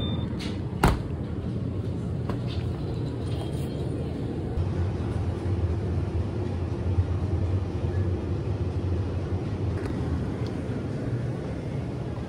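Steady low rumble of a vehicle in motion, with one sharp click about a second in.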